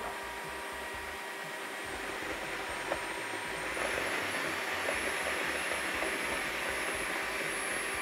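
Dreame H12 Pro wet-dry floor vacuum running, its roller head scrubbing and sucking up spilled pudding. About halfway through, its high whine steps up in pitch and it gets a little louder, which the user takes for the cleaner raising its suction power on its own.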